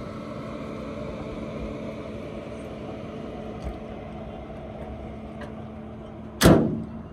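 A car engine idling steadily, with one loud thump about six seconds in.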